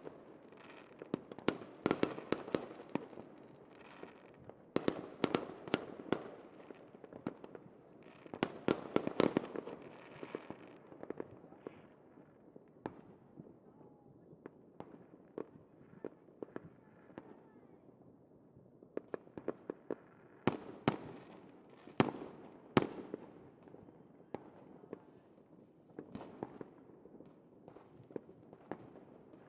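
Fireworks crackling: many sharp pops and bangs in quick, irregular clusters, densest in the first ten seconds, then thinning out, with a few loud single bangs a little past the middle.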